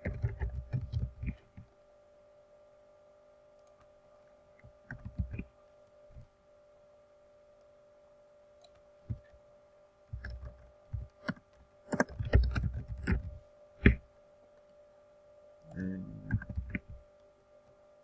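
Computer keyboard typing and mouse clicks in several short bursts, over a steady electrical hum.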